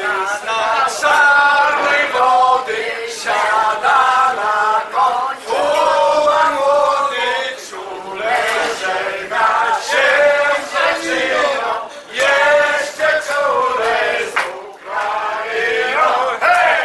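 A group of party guests singing a birthday song together, loud and in unison, with long held notes.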